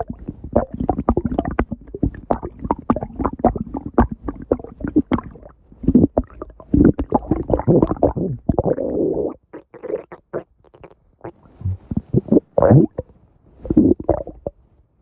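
A person's stomach growling: long, irregular runs of gurgles and rumbles, turning sparser and quieter about two-thirds through before a few loud gurgles near the end.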